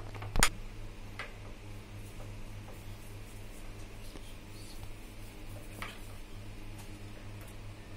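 Metal spoon stirring thick chickpea-flour batter in a bowl: a few sharp clicks of the spoon against the bowl, the loudest about half a second in, over a steady low hum.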